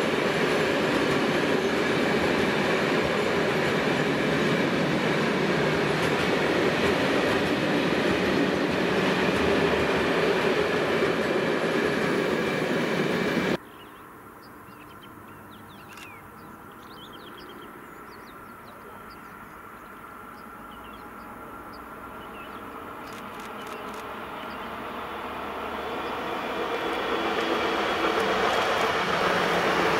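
Open coal wagons of a freight train rolling across a railway bridge: a loud, steady rumble and rattle of wheels on rails. After an abrupt cut the level drops and a few faint high chirps are heard, then a Newag Impuls 2 electric multiple unit approaches, its sound rising steadily to full loudness near the end.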